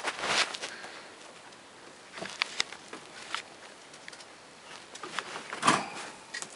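Faint rustling and handling noise with a few short clicks and knocks scattered through it, the sharpest about half a second in and near the end.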